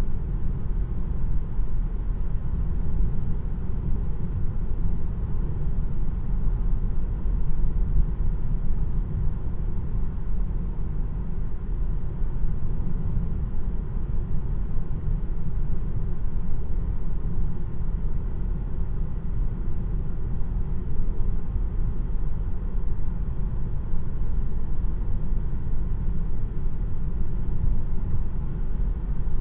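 Road and tyre noise inside the cabin of a 2026 Tesla Model 3 Premium RWD electric car on the move: a steady low rumble with no engine note.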